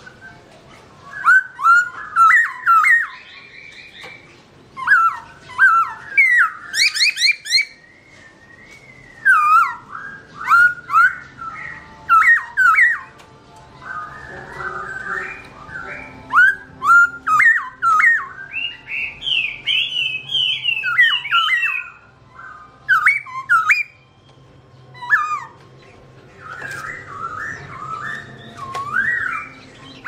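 Black-throated laughingthrush singing: loud, clear whistled phrases of sliding notes, given in bursts with short pauses between them and a quick high rising flourish about seven seconds in.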